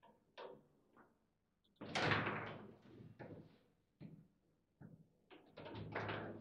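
Table football being played: sharp clacks of the ball struck by the plastic players and rods knocking against the table, with a loud bang about two seconds in and a quick run of knocks near the end.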